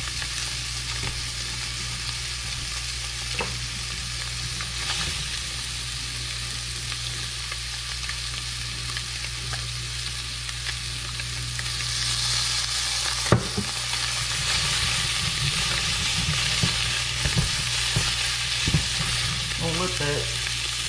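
Blackened fish fillets sizzling in oil in a hot cast-iron skillet, a steady frying sizzle that grows louder about twelve seconds in. One sharp knock sounds a little after that.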